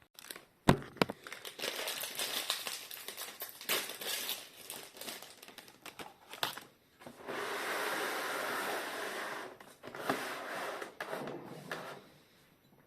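Crinkling plastic and handling noise, many small clicks and taps, with a steadier rustle lasting about two seconds just past the middle.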